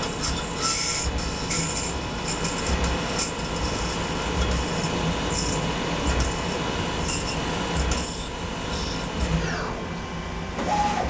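Metal lathe running while a small pilot drill cuts into a 5/8-inch hex nut blank: a steady machine hum with short, scratchy high-pitched cutting noises coming and going as the drill is fed in. Near the end a short falling tone is heard.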